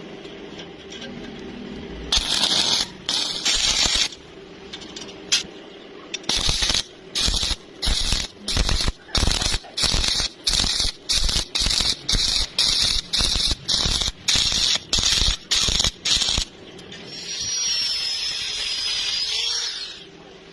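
A welding arc crackling in short, evenly spaced bursts, about twenty of them, each under half a second, starting about two seconds in. Near the end comes a steadier hiss of about three seconds with a thin high whistle in it.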